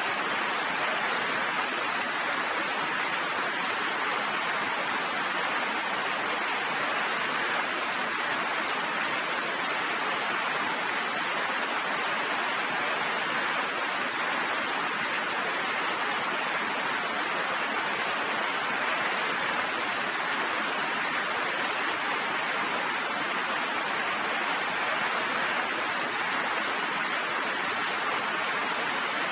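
Steady rain falling, an even hiss without breaks or thunder.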